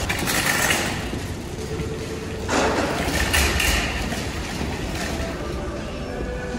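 Car driving, heard from inside the cabin: a steady low road rumble with two swells of hiss, about a second long near the start and longer from about two and a half seconds in.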